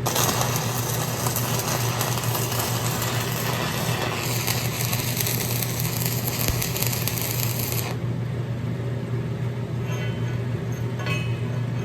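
Small excavator's engine running steadily, with a dense hiss laid over it that stops about eight seconds in.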